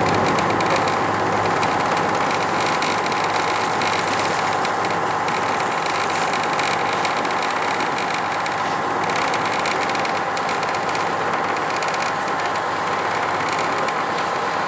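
Sightseeing boat's engine running steadily while under way, a constant hum with a faint steady whine over it.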